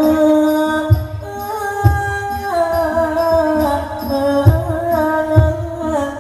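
Thai likay stage music through loudspeakers: a slow melody of long held notes with singing, broken by a few low drum strokes.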